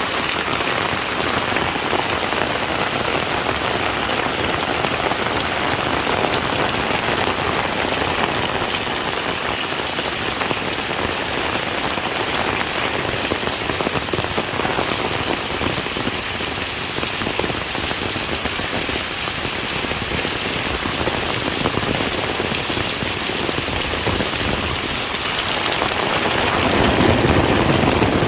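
Heavy rain falling steadily on a surface, an even hiss of drops. About two seconds before the end the sound grows louder and deeper.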